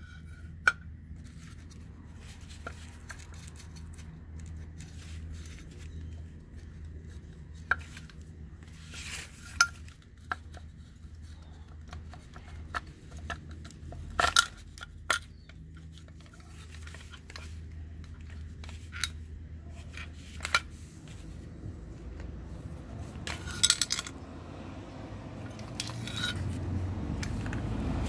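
Metal parts of a Porsche 996 Turbo rear-spoiler actuator (aluminium housing, screw drive and motor) clicking and clinking as they are handled and fitted together by hand. The sharp clinks come irregularly, a few seconds apart, over a steady low hum.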